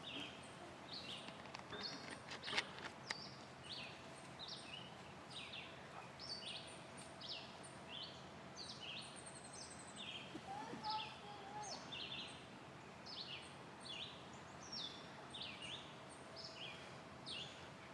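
Birds chirping: a steady run of short, high chirps that fall in pitch, about two a second, over quiet outdoor background noise. A sharp click about two and a half seconds in is the loudest moment.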